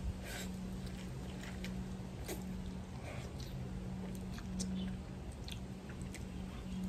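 A child eating stir-fried spicy instant noodles with chopsticks: scattered wet chewing and slurping clicks, irregular and short, over a steady low hum.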